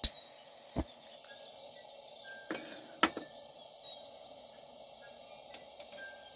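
Vintage Optimus 199 camp stove being lit: three sharp clicks, at the start, about a second in and about three seconds in, as the burner catches.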